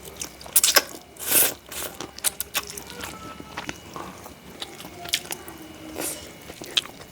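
Close-miked eating of spicy Indomie instant noodles: chewing and mouth smacking, with many sharp wet clicks and a few short louder bursts, the loudest about a second in.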